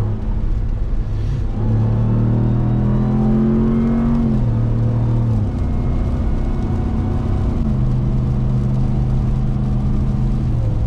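2021 Ram 1500 TRX's supercharged V8 engine running steadily under way, its drone stepping up and down in pitch a few times.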